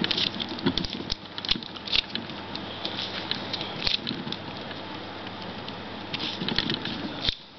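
A plastic 3x3x1 floppy cube being turned and flipped by hand, its layers making irregular light clicks and rattles.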